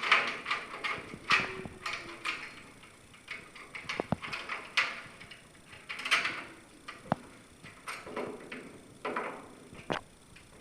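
A screw being driven into the door sensor's bracket with a hand screwdriver. There is a series of short scraping turns, about one a second, with a few sharp metallic clicks.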